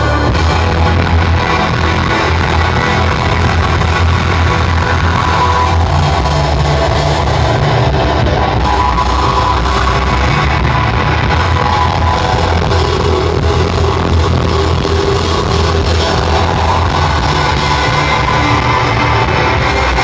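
Loud live shoegaze band playing, electric guitars and bass in a dense, steady wall of sound.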